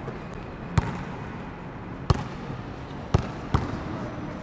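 Basketballs bouncing on a hard sports-hall floor: four separate thuds at uneven intervals.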